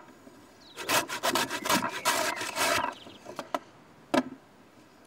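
Fresh horseradish root grated on a metal grater: a quick run of rasping strokes for about two seconds, followed by a few light clicks and a single knock.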